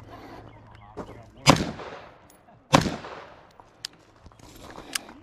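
Two gunshots about a second apart, each trailing off in an echo, followed by two fainter sharp ticks.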